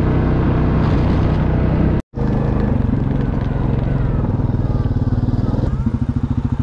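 A small vehicle's engine running steadily as it drives along, with a pulsing note. The sound cuts out for a moment about two seconds in, then the engine carries on.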